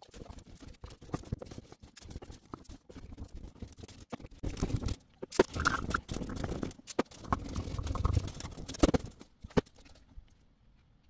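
A cloth being rubbed hard back and forth over the plastic face of a prize wheel, an irregular scratchy scrubbing with a few sharp clicks, louder in the middle, that stops shortly before the end.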